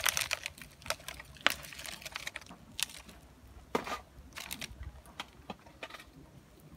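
A succulent's root ball being worked out of a flexible black plastic nursery pot by hand: irregular crinkles, taps and rustles of plastic and loose soil, sharpest near the start and about a second and a half in.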